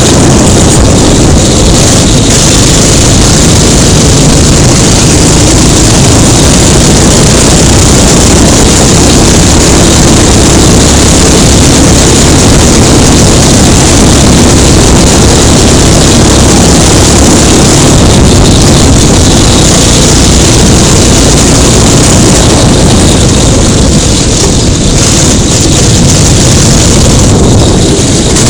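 Rental go-kart engine running at speed, heard from an onboard camera: loud and steady, with wind rush on the microphone, dipping briefly a couple of times near the end.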